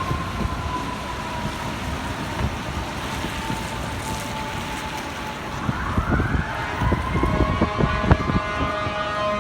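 Fire engine's mechanical siren slowly winding down, then winding back up to a high wail about six seconds in, over the rumble of city traffic.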